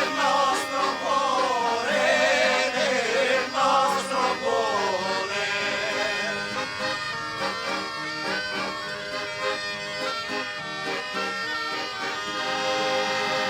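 A song with accordion accompaniment: a wavering sung melody over held accordion chords for about five seconds, after which the accordion's sustained chords carry on alone.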